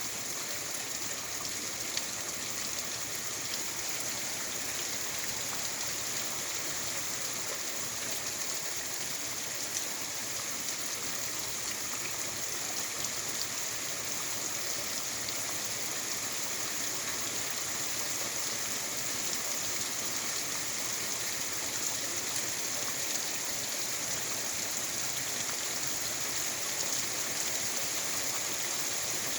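Steady heavy rain falling at night, an even hiss with faint scattered ticks of drops.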